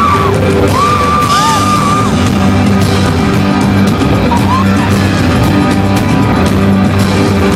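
Live rock band playing loudly, recorded from among the audience in a theatre, with some yells from the crowd.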